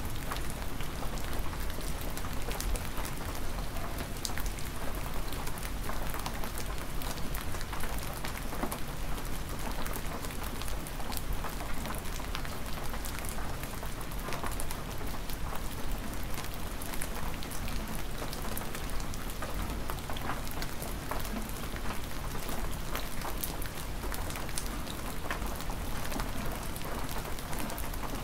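Hard, near-freezing spring rain falling steadily: a dense hiss of countless drops striking, with sharp individual drop hits scattered all through.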